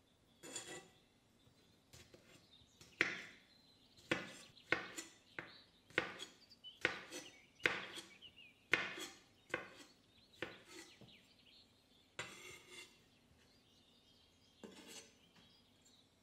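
Kitchen knife chopping on a wooden cutting board: a run of about a dozen sharp knocks at an uneven pace, thinning out after about ten seconds.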